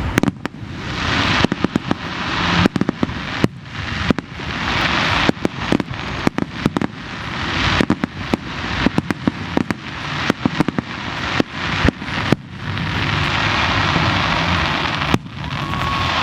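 Fireworks display: many sharp bangs of bursting shells in quick, irregular succession, with a crackling hiss that swells between them. The bangs thin out after about twelve seconds and a steady crackling hiss carries on.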